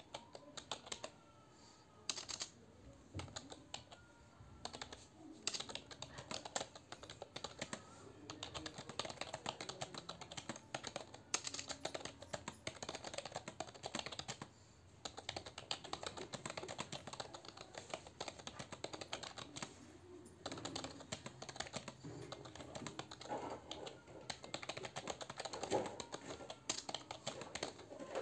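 Fast touch-typing on a computer keyboard: a dense, continuous stream of key clicks, broken by a few brief pauses.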